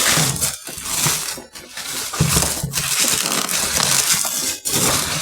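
Cardboard box and packaging being handled and pulled open: irregular rustling, scraping and crinkling in uneven bursts.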